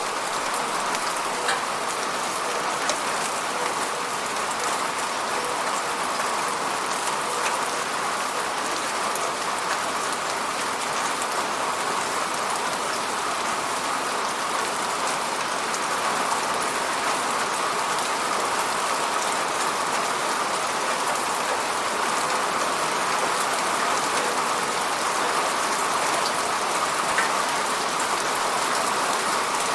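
Steady rainfall pattering on a surface, a dense even hiss of drops with occasional sharper individual drop ticks.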